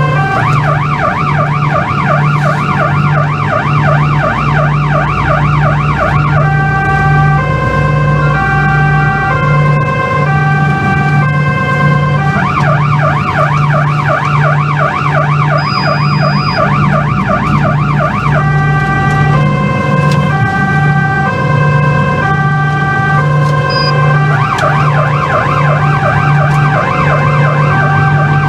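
Police van's electronic siren heard from inside the vehicle. It alternates about every six seconds between a fast warbling yelp, about four sweeps a second, and a stepped pattern of alternating steady tones. A low hum pulses underneath.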